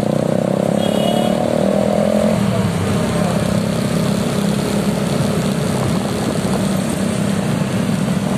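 Big motorcycle's engine running under way in traffic, its pitch rising over the first couple of seconds and then settling to a steady run. A short high beep sounds about a second in.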